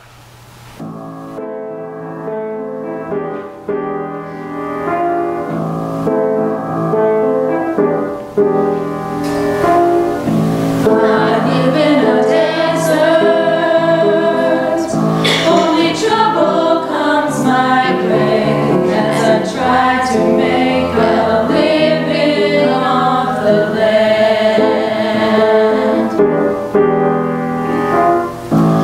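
A small mixed vocal ensemble of women's and men's voices singing a choral piece in sustained parts, starting softly and swelling louder over the first several seconds.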